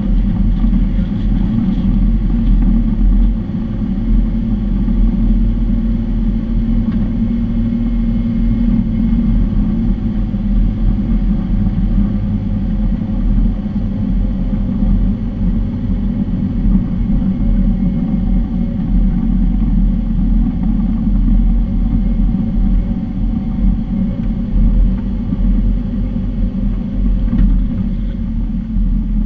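Off-road SUV driving slowly along a gravel track: a steady low rumble of engine and tyres on the rough surface, picked up by a microphone on the vehicle's hood.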